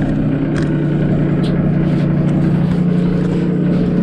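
Passenger elevator cabin travelling down, a steady low hum with a few light clicks.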